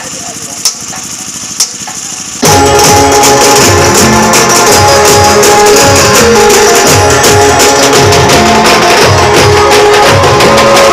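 Banjo band striking up: after a few scattered drum taps, an amplified banjo melody and a steady beat of large bass drums and steel-shelled side drums start suddenly about two and a half seconds in and play on loudly.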